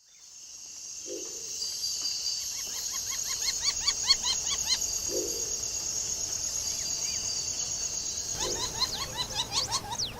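Outdoor nature ambience fading in: a steady high insect chorus, with a bird calling in quick runs of repeated up-and-down chirps in the middle and again near the end. A short low call sounds three times.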